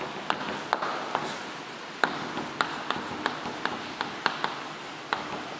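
Chalk writing on a chalkboard: a string of sharp, irregular taps, about two a second, as the chalk strokes land on the board.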